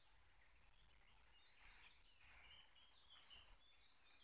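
Near silence: faint outdoor ambience with scattered short, high bird chirps.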